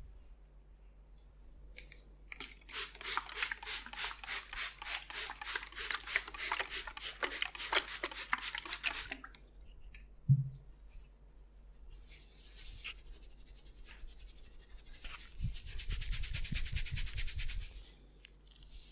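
Hands rubbing rhythmically over skin and hair in a massage, about four strokes a second for several seconds. A single loud thump follows, then faster rubbing near the end.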